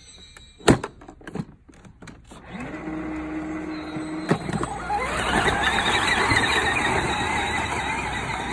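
Child's electric ride-on princess carriage starting off and driving across gravel: a sharp click about a second in, a short steady tone, then from about halfway the plastic wheels crunching over the gravel with the motor running.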